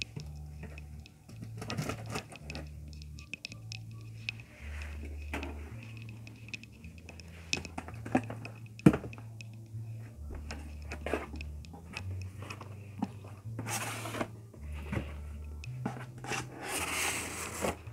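A cardboard shipping box being handled and cut open by hand: scattered taps, knocks and scrapes on the cardboard, with longer rasping, tearing noises about fourteen and seventeen seconds in.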